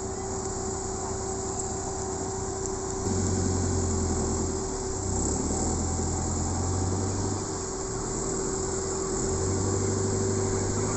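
A vehicle engine runs, coming up louder about three seconds in, easing off briefly, then picking up again. A steady insect drone carries on underneath.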